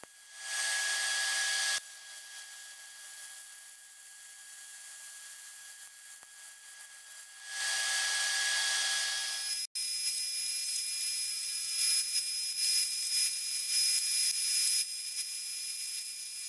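Arc welding on the steel Dana 44 axle tube and inner C knuckle: a crackling hiss that comes in two stretches, one short and one longer. About two-thirds through, an angle grinder takes over, grinding the steel knuckle with a steady high whine and uneven louder scraping.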